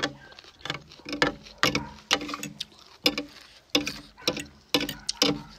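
Close-up mouth sounds of eating papaya salad with squid and instant noodles: chewing and lip smacks, sharp wet clicks coming irregularly about twice a second.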